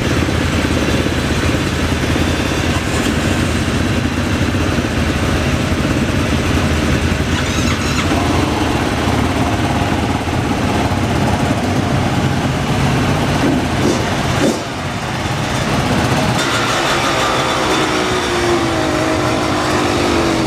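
Several dirt bike and quad engines running together, warming up, a dense steady engine noise with a brief dip about two-thirds of the way through and some rising and falling pitch near the end.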